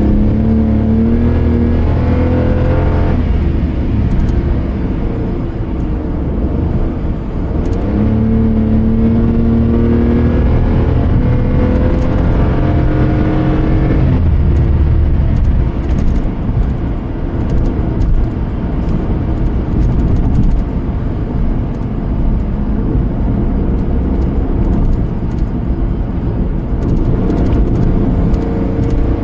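Car engine and road rumble while driving. The engine note rises as the car accelerates, once in the first three seconds and again from about eight to fourteen seconds in.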